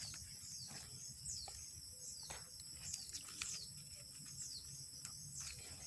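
Steady high-pitched insect drone with short, falling bird chirps about once a second, and light rustles of leaf litter and grass being handled.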